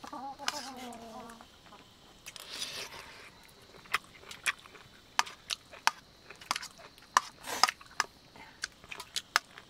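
A metal spoon clinking and scraping against a steel plate while scooping rice and vegetables, in sharp irregular clicks, some close together.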